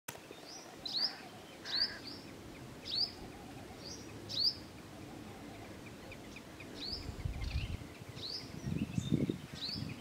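A bird calling again and again with short, sharp chirps that sweep upward, spaced about a second apart, over steady outdoor background noise. A low rumble joins from about seven seconds in.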